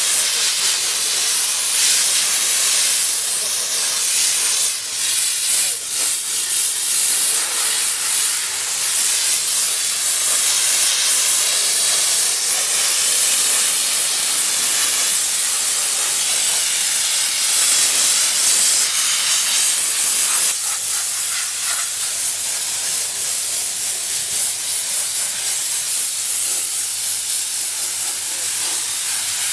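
A steam car-wash gun blowing a steady, high hiss of steam, dipping briefly twice about five seconds in.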